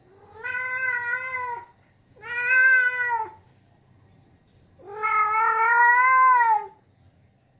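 Ragdoll cat meowing close up: three drawn-out meows, the third the longest and loudest.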